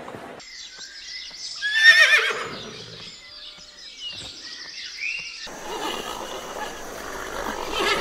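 A horse whinnying once, a loud wavering call about two seconds in that lasts about a second.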